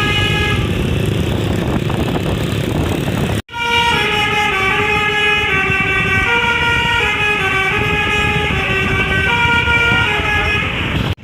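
Bus's Basuri telolet horn playing a tune of stepped, multi-tone notes over the rumble of the bus engine. The tune cuts off sharply about three and a half seconds in, starts again at once, and breaks off once more near the end.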